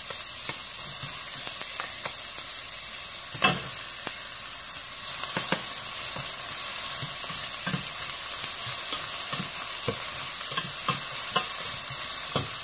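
Chopped red onion sizzling in a stainless steel frying pan while a spatula stirs it, knocking and scraping against the pan every so often, with one sharper knock about three and a half seconds in. The sizzle grows a little louder about five seconds in.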